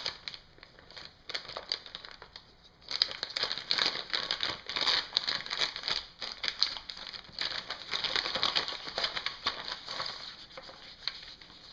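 Plastic packaging bag crinkling as it is opened and the cable is pulled out. A few light handling sounds at first, then sustained, dense crinkling from about three seconds in.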